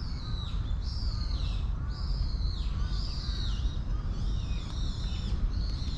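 High bird calls repeating about once a second, each an arched, falling note, over a steady low rumble.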